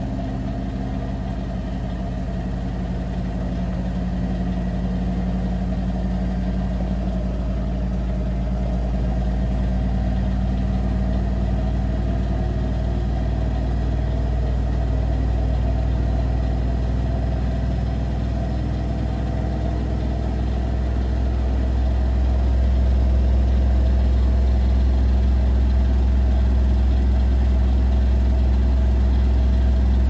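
Bosch Serie 6 front-loading washing machine spinning its drum fast: a steady low hum that grows louder through the spin, with a step up about two-thirds of the way through.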